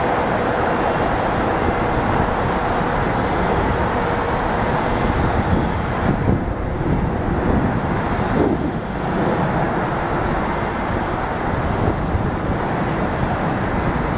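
Steady distant rumble of a Boeing 787-9's jet engines as the airliner slows on the runway after landing, blended with road traffic noise. A louder swell passes about six to nine seconds in.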